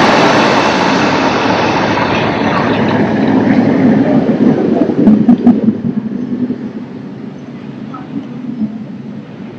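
Recorded rushing-waterfall sound played through the speakers of a digital waterfall display: a loud, even rush of falling water that starts suddenly and dies down gradually over the second half.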